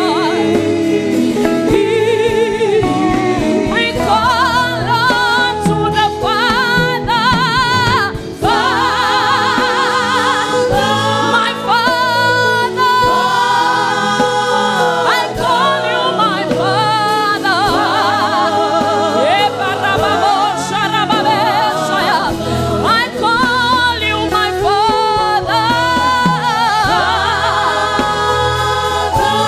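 Gospel worship song: voices singing with wavering, held notes over band accompaniment with a steady bass underneath.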